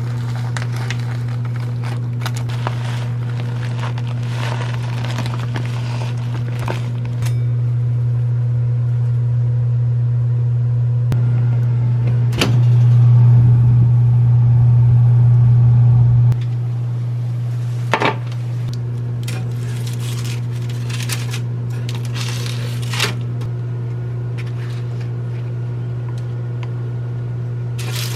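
Microwave oven running: a steady low hum that grows louder for about nine seconds in the middle. A few scattered clicks and clinks of dishes sound over it.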